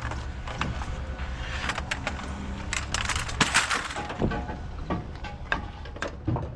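Scrap metal being picked through and handled: irregular clattering knocks and a scraping rattle about three and a half seconds in, over a steady low engine hum.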